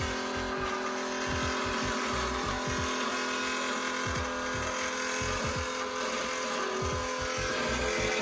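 Electric turbo oil scavenge pump running with a loud, steady hum of several constant tones.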